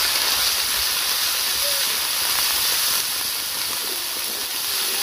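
Spice paste sizzling steadily in hot oil in a steel wok as it is stirred with a wooden spatula.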